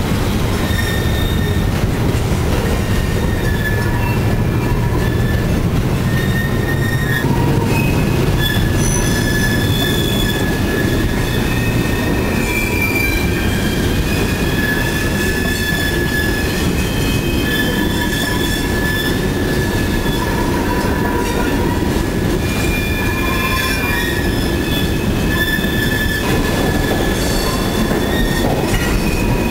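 Train of loaded coal cars rolling through a curve: a steady rumble of steel wheels on the rails, with wheel flanges squealing on and off in high, shifting tones.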